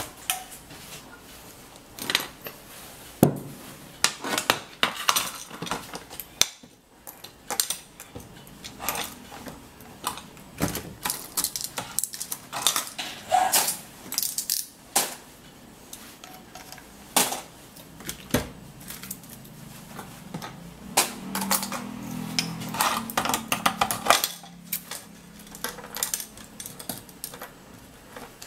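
Irregular metallic clinks, taps and knocks from stainless-steel sheet and metal pipe clamps being handled and fitted together.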